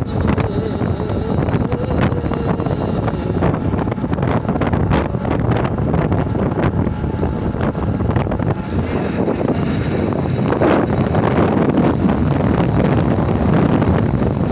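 Wind buffeting the microphone over a steady low rumble, in uneven gusts.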